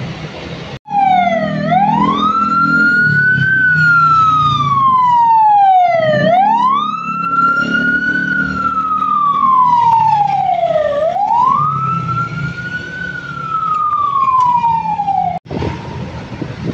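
Ambulance's electronic wail siren, about three cycles, each rising quickly in pitch and then falling slowly, over low engine noise. It starts just under a second in and cuts off suddenly near the end.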